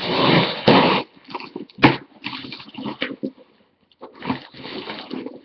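A cardboard package being torn open by hand: bursts of ripping and rustling, with a sharp tear about two seconds in and a short pause before more rustling.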